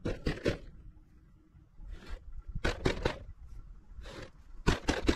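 Nylon paracord being handled and pulled while a tarp tensioner knot is tied, in about five short rustling scrapes.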